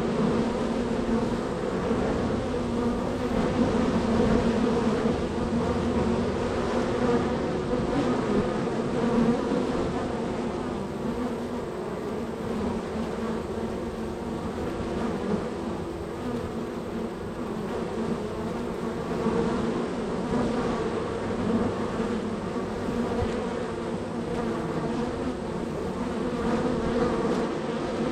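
Honey bees buzzing steadily in a dense swarm of wingbeats at the hive entrance, many foragers flying in and out at once; the hum wavers slightly in loudness.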